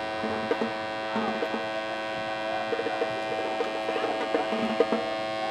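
Steady electric buzz of a vibrating electric football game board, with light irregular rattling of the pieces standing on it.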